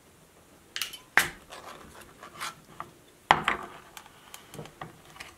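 Clicks, knocks and scraping of a metal sardine tin being handled on a wooden cutting board, with two sharp clacks, one about a second in and one a little past three seconds.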